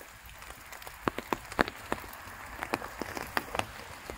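Scattered raindrops ticking irregularly, several a second, over a faint hiss of light rain.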